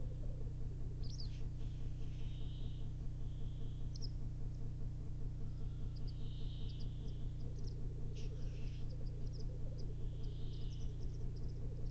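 Black grouse lekking: a continuous rhythmic bubbling coo from the displaying males, with several short hissing calls over it. A steady low hum lies underneath.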